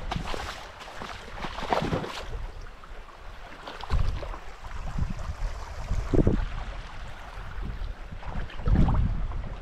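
Spring runoff water rushing, an uneven hiss, with irregular low rumbles of wind buffeting the microphone.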